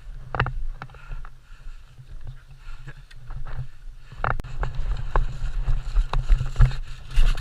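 Footsteps and handling knocks as a player walks, with wind rumbling on the microphone; the knocks come irregularly and are denser in the second half.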